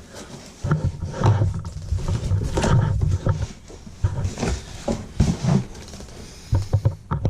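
A cardboard shipping box and its packing being handled and pulled at by hand, with irregular rough scraping and rubbing and crackling throughout.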